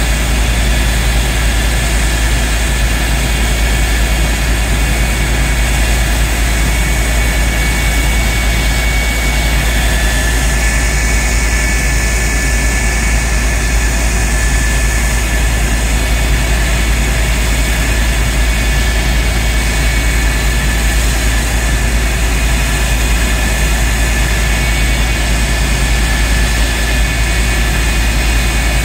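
The General Electric J79 turbojet of a CF-104D Starfighter running steadily on the ground: a loud jet rumble with a high turbine whine, whose pitch shifts slightly about ten seconds in.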